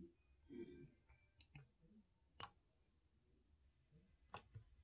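Near silence with a few faint, sharp clicks spaced out, the clearest about two and a half seconds in.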